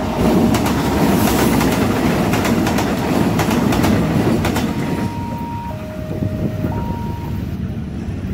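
A KRD diesel multiple-unit commuter train passes over the level crossing, its wheels clattering over the rail joints. The noise fades after about four and a half seconds. A two-tone crossing warning alarm sounds throughout, alternating between a low and a high tone of about a second each.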